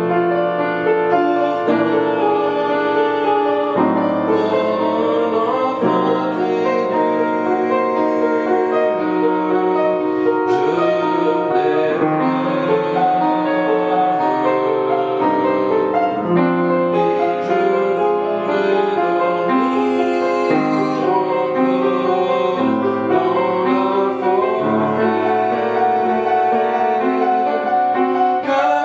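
Classical French art song for voice and piano: piano chords with a trained voice singing sustained notes.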